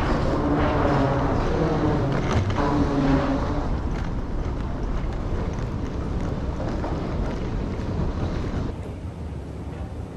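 Steady vehicle running noise, a rumble with hiss, which drops in level near the end.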